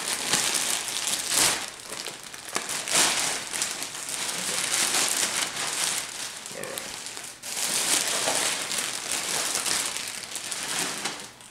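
Thin clear plastic bag crinkling and rustling as it is pulled off a plush doll, in irregular surges of crackle.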